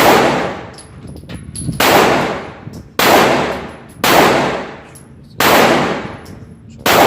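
Glock 9mm pistol firing six shots in slow succession, about one every second or so, each crack ringing out and fading over about a second.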